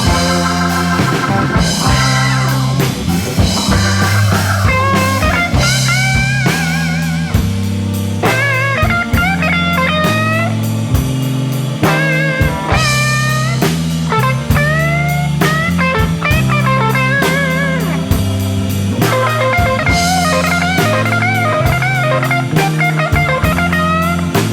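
Blues-rock band playing an instrumental break: a lead guitar solo with bent, wavering notes over a walking bass line, drum kit and organ.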